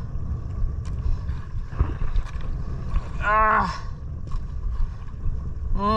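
Steady low rumble on a small fishing boat at sea, with scattered small knocks and one short voice call about three seconds in.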